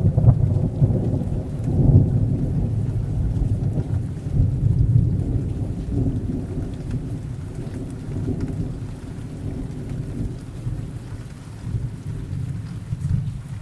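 A thunderclap breaks at the start and rolls on as a long low rumble, swelling twice more before slowly dying away, over steady rain.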